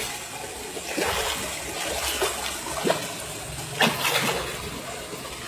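Water splashing: a few sharp splashes over a steady watery wash, as a large hooked pacu (bawal) thrashes at the surface while being brought in.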